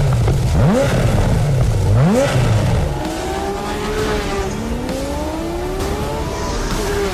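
Porsche Carrera GT's V10 engine revving hard in three quick throttle blips. It then pulls longer, the pitch climbing steadily and falling once about halfway through at a gearchange.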